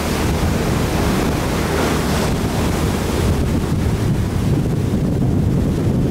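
Strong wind buffeting the microphone over the rush of the sea along a tall ship's hull as it sails fast under full canvas, a steady heavy rumble; the higher hiss eases after about three seconds.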